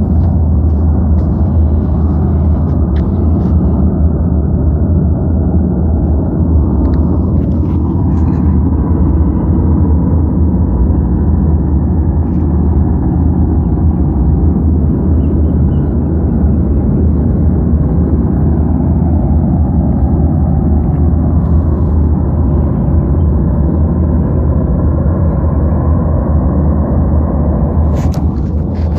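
Loud, steady low rumbling drone of the kind presented as a mysterious sound coming from the sky, with a faint sliding tone about a quarter of the way in and a few crackles near the end.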